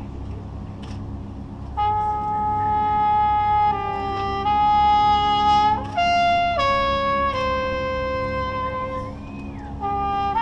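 Drum corps brass playing a slow melody of long held notes that change pitch every second or two over a soft sustained low chord. The melody enters about two seconds in after a quieter opening.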